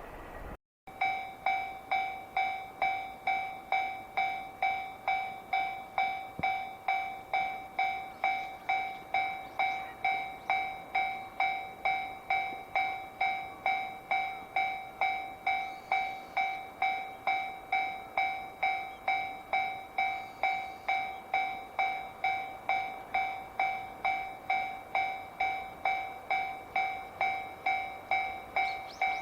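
Japanese level crossing warning alarm ringing its repeated electronic 'kan-kan' at about two strikes a second. Each strike rings at two fixed pitches and fades before the next.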